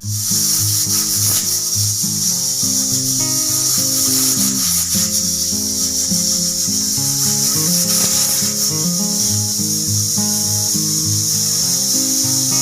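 Pressure cooker letting off steam: a steady, loud high hiss from the whistle vent. Background music with a melody plays alongside.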